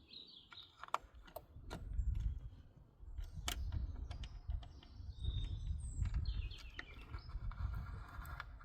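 Scattered small clicks and knocks of hand work on a van's cooling system as the coolant bleed screw is refitted, over a low rumble.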